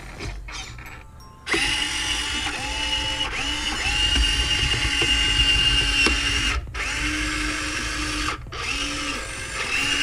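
Electric servos of an RC-converted Bruder tracked skid steer whining as the model drives and raises and lowers its arm. The whine starts about a second and a half in, its pitch bending up and down as the sticks move, and it stops briefly twice in the second half.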